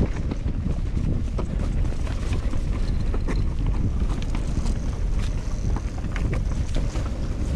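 Wind buffeting the microphone over the steady rumble of a mountain bike rolling downhill, its tyres and frame rattling over loose stones with scattered clicks and knocks.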